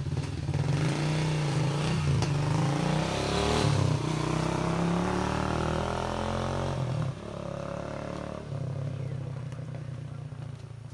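An engine running loud and close, its pitch wavering a little. Its level drops sharply about seven seconds in and eases off near the end.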